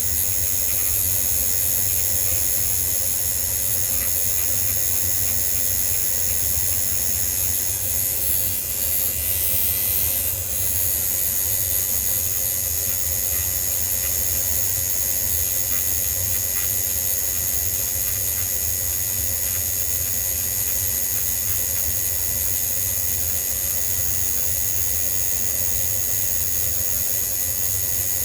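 A machine running steadily: a low motor hum under a strong, even hiss, with a brief change in the hiss around a third of the way in.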